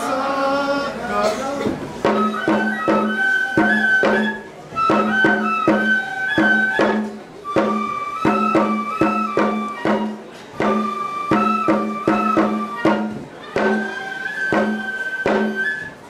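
Japanese folk ritual music for the shirosuri dance: a high wind melody in held notes over a quick, steady beat of percussive strikes. It comes in about two seconds in, as the end of a sung verse dies away.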